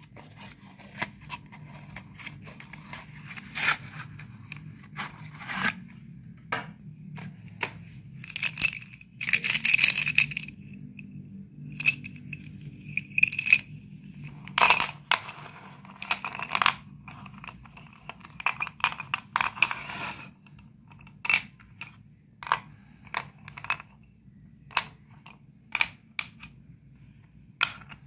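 Sticks of dustless colour chalk clicking and clattering as they are handled and set down on a wooden board. Irregular sharp clicks are mixed with a few longer stretches of scraping and cardboard rustling from the chalk box.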